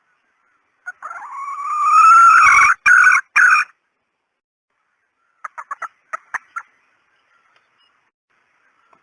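Female red junglefowl calls: one long drawn-out call that rises at the start and breaks into three short pieces at the end, then a quick run of about seven short clucks.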